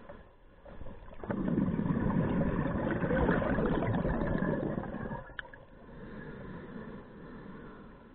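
Scuba diver's exhaled bubbles rushing out of the regulator for about four seconds, starting a little over a second in, with quieter breathing noise either side and a short click just after the exhale.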